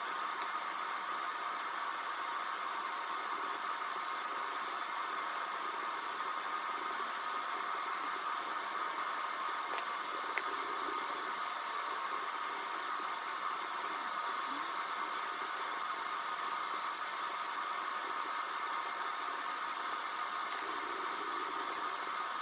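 Steady hiss with a faint hum, unchanging throughout: background noise with nothing else prominent, apart from a couple of faint ticks about ten seconds in.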